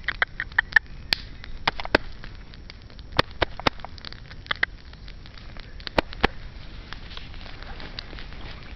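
Walking through long grass and rushes: rustling with irregular sharp crackles and snaps of stems, most frequent in the first four seconds, with a couple more about six seconds in, then softer rustling.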